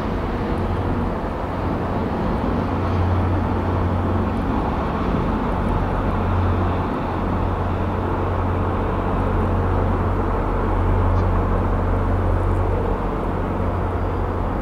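Steady low diesel-engine drone from an MBTA commuter rail train running behind the drawbridge, over a constant wash of city traffic noise.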